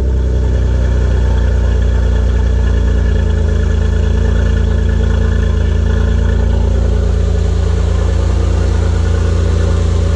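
Honda V6 engine, mid-mounted in a 1967 Mustang race car, idling steadily just after being started. This is its first run since its failed timing belt was replaced. The idle settles slightly lower about three seconds in.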